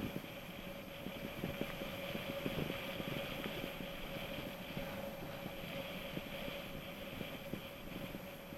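Mountain bike rolling over a rough track: steady tyre and wind noise with many small irregular rattles and knocks.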